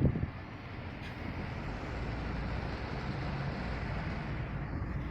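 Steady road and engine noise inside a moving car: a low hum under an even hiss.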